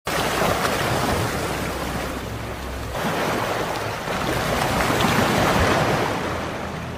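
Small waves lapping and washing over a shallow gravel lakeshore, swelling and ebbing, with wind rumbling on the microphone.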